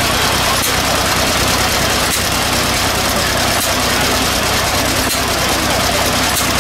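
Vintage stationary engine running steadily, driving an antique hopper-fed farm machine through a long flat belt. A light regular beat recurs about every second and a half.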